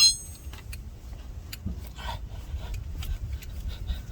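A sharp metallic ping at the start, then scattered clicks and metal-on-metal scraping as a seized brake caliper slide pin is worked free.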